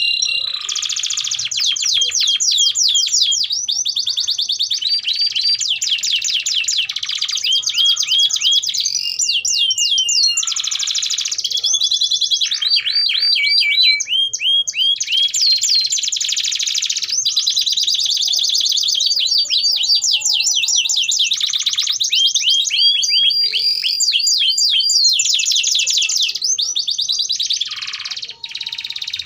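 Domestic canary singing a long, almost unbroken song of fast trills and rapidly repeated notes, switching to a new phrase every second or few seconds.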